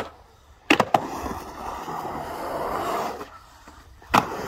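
Skateboard in a concrete bowl: silent while airborne, then the wheels slam down with two sharp cracks a little under a second in and roll with a steady rumble on the concrete. The rumble stops while the board is in the air again, and a hard landing cracks near the end.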